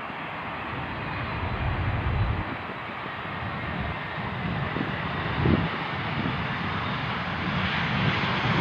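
Jet airliner on approach to land, a steady rushing engine noise growing gradually louder as it nears.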